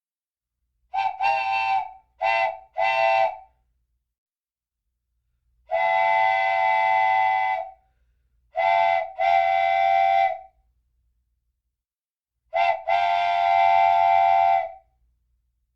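Wooden train whistle blowing a chord of several close tones in separate blasts: four short toots, one long blast of about two seconds, then twice a short toot followed by a longer blast.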